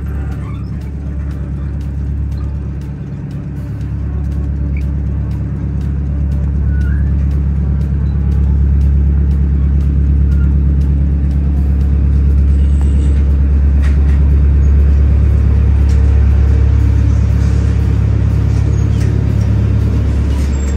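Small passenger ferry's engine running with a steady low hum, growing louder about eight seconds in as the boat's deck is reached.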